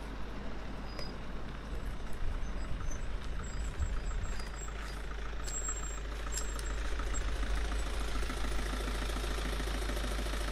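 Engine of a small Kia pickup truck running with a steady fast pulse, growing somewhat louder about halfway through as the truck comes up and stops.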